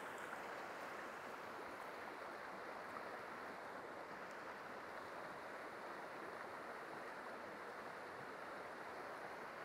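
Faint, steady rush of fast-flowing river water, an even hiss of current with no distinct events.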